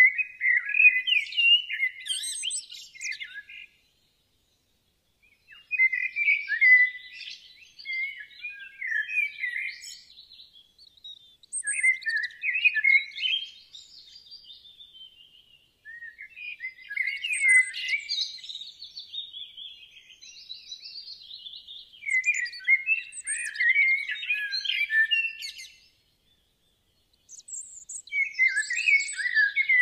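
Birdsong: phrases of rapid, high chirping and twittering a few seconds long, cutting to complete silence twice, about four seconds in and near the end.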